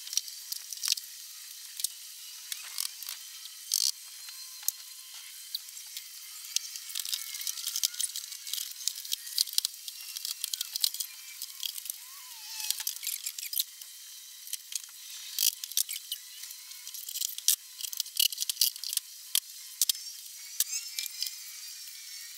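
Irregular clicks, knocks and clatter of wooden boards and tools being picked up, moved and set down on a workbench. Thin and tinny, with no low end.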